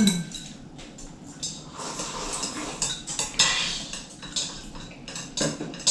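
Chopsticks clinking and tapping against ceramic bowls and a pan while people eat, a scattered run of light clinks.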